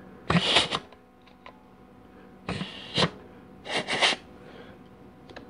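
Three short blasts of compressed air from a shop air blow gun, each about half a second long, air-checking the 2-4 band servo in a 700R4 transmission case to make the band apply.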